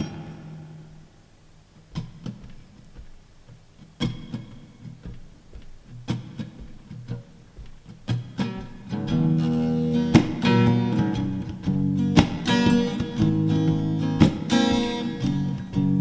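Background music led by acoustic guitar: sparse single strokes about every two seconds, then fuller strumming from about halfway through.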